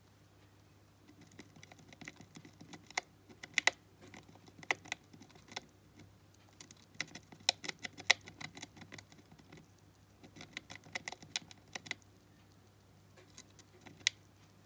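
Syrian hamster gnawing at the edge of its cheese-shaped chew hideout: irregular sharp clicks and crackles in quick clusters, pausing between runs, with a lone click near the end.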